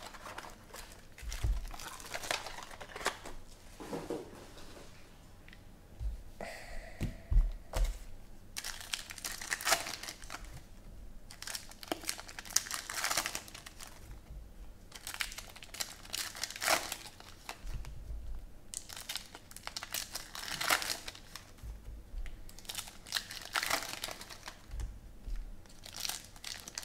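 Plastic trading-card pack wrappers crinkling and tearing as packs are opened, with the cards being handled. The sound comes as many short, irregular rustles.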